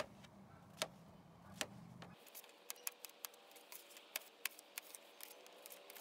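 Kitchen knife slicing an onion and a bell pepper on a thin plastic cutting mat: a few separate blade taps at first, then quicker, irregular taps from about two seconds in. A low background rumble cuts off about two seconds in.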